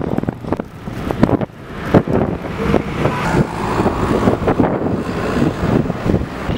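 Road traffic going past, with a car passing close by about midway through, and wind buffeting the microphone.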